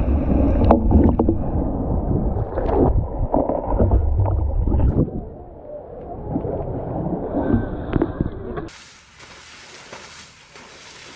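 Water splashing and sloshing as an Asian elephant moves and plays in a pool, a heavy low churning with several sharper splashes. About nine seconds in it cuts off suddenly to a much quieter, even hiss.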